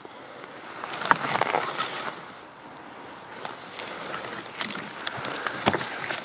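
Rustling and scraping of a ghillie-suited player moving over loose stony ground, with scattered clicks and knocks from handling the rifle that carries the camera.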